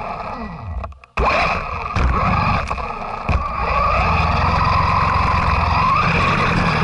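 Radio-controlled 4x4 truck driving over snow, heard from a camera on its body: a steady motor whine that rises near the end, over a rumble from the tyres and chassis, with a few knocks as it hits bumps. The sound drops out briefly about a second in.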